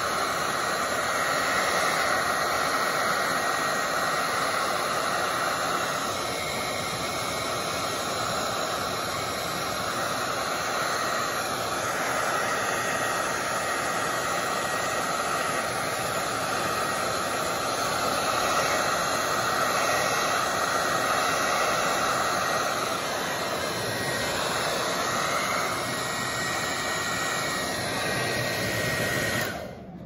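Hair dryer running on high heat, a steady blowing rush with a thin steady whine, aimed at a plastic shrink-wrap seal to shrink it. It is switched off and cuts out just before the end.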